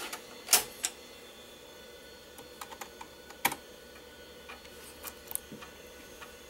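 A floppy disk going into a PC's floppy drive with a sharp clack, a key press, then the floppy drive's head ticking and clicking as it reads a boot disk. A PC's steady hum runs underneath.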